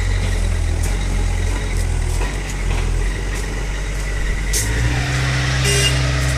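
An engine idling with a steady low hum. Its tone shifts about five seconds in, and a couple of brief clicks follow near the end.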